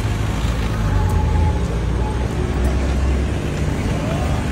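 Street noise dominated by a steady low motor-vehicle engine rumble, with faint voices from the walking crowd.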